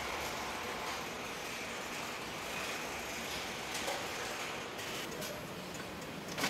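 Car assembly plant ambience: a steady hum and hiss of factory machinery, with a few faint clicks about four and five seconds in.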